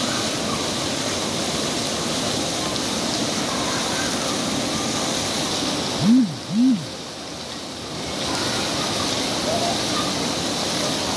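Water pouring and splashing steadily from a water-playground structure into a shallow pool. About six seconds in, two short, loud tones each rise and fall in pitch.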